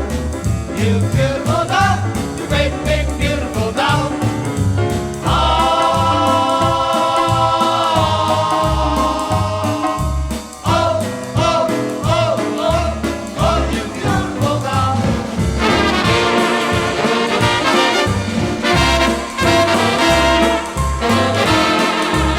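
Dance band recording with trumpets and trombones over a steady bass beat. The brass holds long chords a few seconds in and again past the middle.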